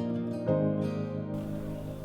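Background music: plucked string notes, with a new chord struck about half a second in and ringing away.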